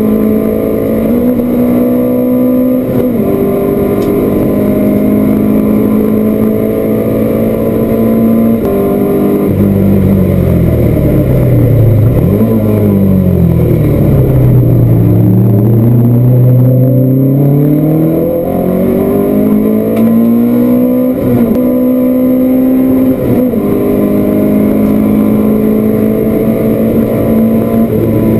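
Race car engine heard from inside the cockpit, held at high revs. About a third of the way in the revs fall steeply, with a brief rise as it downshifts for a slow corner. From about halfway it climbs back up through the gears, with two quick upshifts about three-quarters of the way in.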